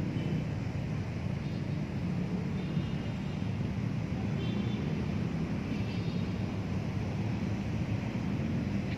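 Steady low outdoor rumble, even in level throughout, with a few faint, brief high tones sounding over it.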